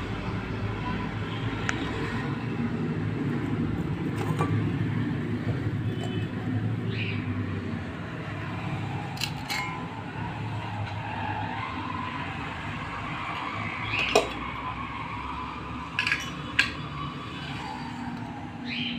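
Stainless-steel bowls clinking and scraping as they are handled and set down, with a few sharp clinks in the second half, the loudest about halfway through. A steady low rumble runs underneath.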